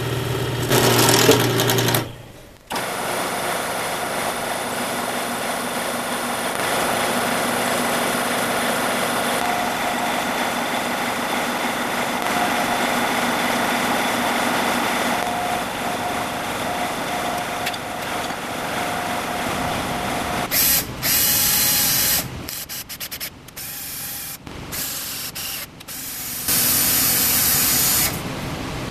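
Drill press motor running steadily while a cutter in its chuck skims the edge of an aluminium plate held in a vise. About twenty seconds in this gives way to a cordless drill running in short stop-start bursts as it drills into aluminium; two of these bursts are louder than the drill press.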